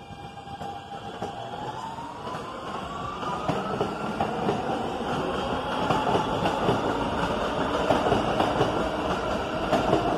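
R160B subway train with Siemens propulsion: its traction motor whine rises in pitch as the train picks up speed. The sound grows steadily louder, with wheel clatter on the rails building in the second half.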